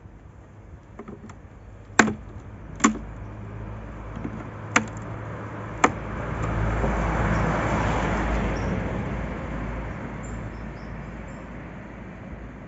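Four sharp wooden knocks as a comb frame is worked loose and lifted out of a wooden beehive box, followed by a rushing noise that swells and fades over a few seconds.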